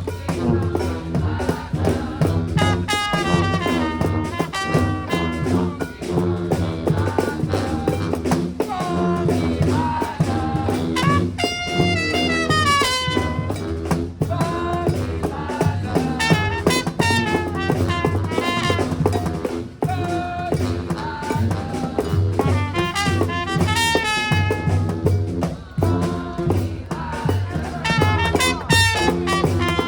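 Live brass band playing a funky number: trumpets and other horns playing riffs and quick runs over a drum kit's steady beat.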